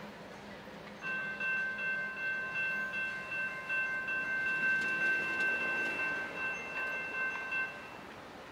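CN diesel locomotive's multi-chime air horn sounding one long steady chord of about seven seconds, starting about a second in, as the locomotive approaches a road grade crossing.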